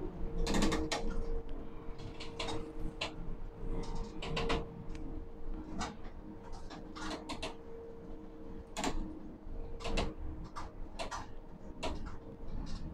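Steady machinery hum in an overhead crane cab, with irregular sharp clicks and knocks about once or twice a second.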